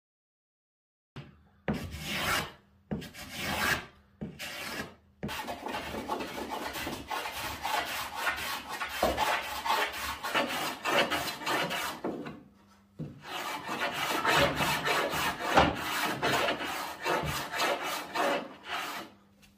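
Hand tool shaving the edge of a white-painted wooden panel, rasping wood in repeated strokes: three separate strokes first, then quick runs of strokes with a brief pause about two-thirds of the way through.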